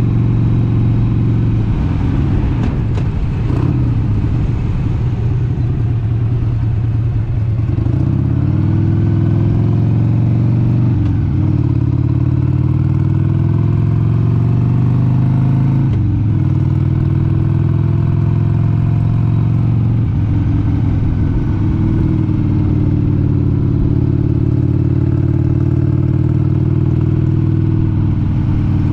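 1996 Harley-Davidson XLH883 Sportster's 883 cc Evolution V-twin running under way. The engine's pitch climbs, breaks briefly about 11 and 16 seconds in and rises again after each break, as it accelerates through the gears, then holds steady at cruising speed.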